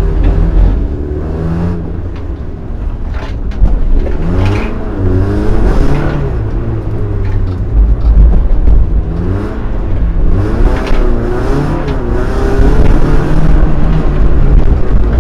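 Opel Calibra's engine heard from inside the cabin, driven hard and revving up and down over and over, its pitch rising and falling with throttle and gear changes.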